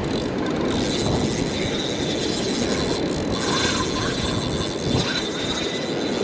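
Surf washing up the beach with wind buffeting the microphone: a steady rushing noise.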